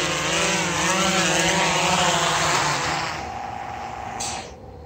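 GoPro Karma quadcopter's propellers whining, the pitch wavering as the drone descends and lands. About three seconds in the whine fades as the motors spin down, with a short burst just before they stop near the end.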